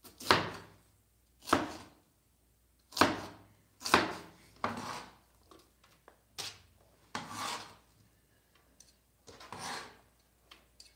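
Cleaver chopping red cabbage on a cutting board: about eight separate crunching strokes at uneven intervals, each fading quickly.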